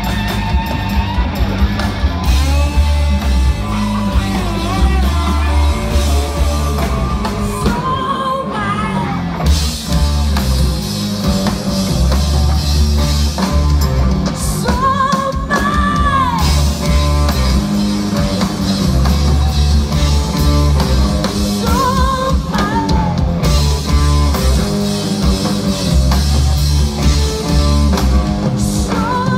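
Live blues-rock band in a heavy '70s style: distorted electric guitars through Orange amplifiers and a drum kit, with a woman singing over them.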